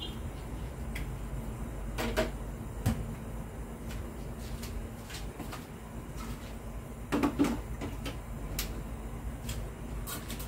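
A few scattered knocks and clatters of kitchen things being handled, the loudest a quick cluster about seven seconds in, over a steady low hum.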